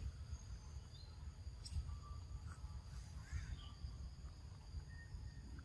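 Faint forest ambience: a steady high-pitched insect drone, with a few brief faint bird chirps about three seconds in, over a low rumble.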